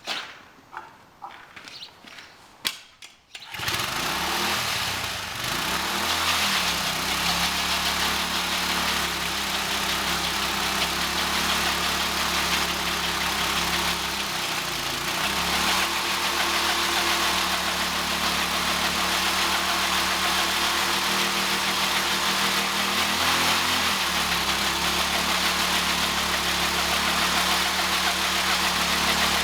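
Briggs & Stratton flathead engine on a lawn mower bike starting about three and a half seconds in after a few faint clicks, then running hard and steadily with a strong hiss, held at high revs for a burnout. Its pitch dips briefly three times.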